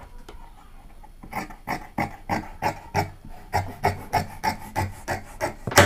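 Scissors cutting through fabric: a run of short snips at about three a second, starting about a second and a half in.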